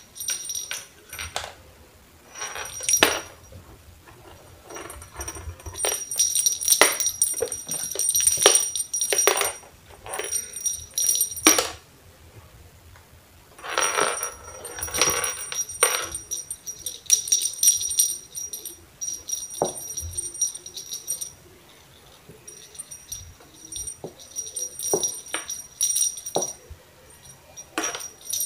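Small jingle bell on a fluffy feather wand toy tinkling in irregular bursts as the toy is shaken and batted by a cat, with a few soft knocks in between.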